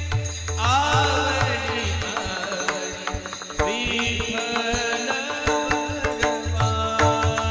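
Marathi devotional kirtan music: a male voice sings long gliding melodic phrases over held sustained notes and a steady hand-drum beat.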